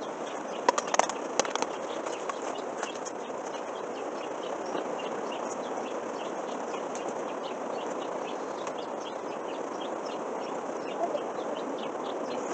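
A few sharp knocks about a second in, then small birds chirping over and over above a steady hiss.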